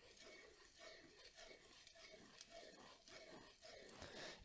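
Near silence: faint outdoor background with a few soft, barely audible sounds.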